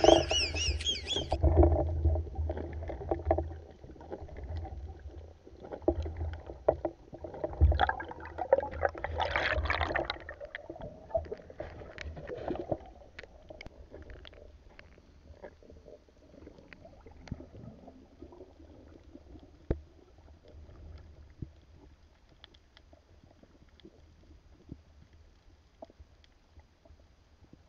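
Muffled underwater sound through an action camera's waterproof housing: low rumbling and surges of moving water with many short clicks, louder in the first half. After about 13 seconds it turns quieter, with scattered sharp clicks.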